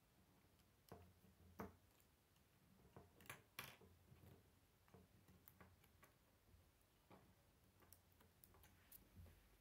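Faint clicking of plastic K'nex pieces being handled and snapped together, a scatter of small irregular clicks, the loudest between about one and four seconds in.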